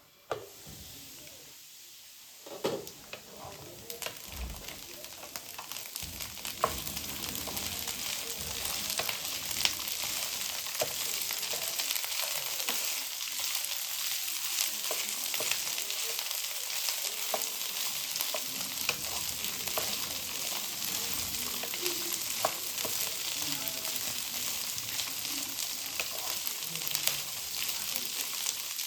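Food frying in a hot pan, a steady sizzle with scattered clicks and taps of a utensil stirring it. The sizzle starts at once, grows louder over the first several seconds, then holds steady.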